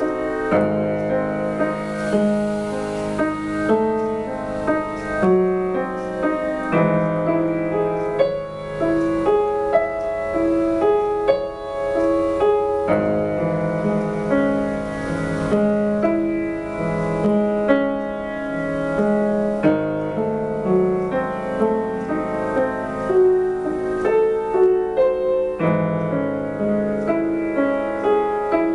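Upright piano played solo: a continuous flow of notes over held bass notes that change every second or two.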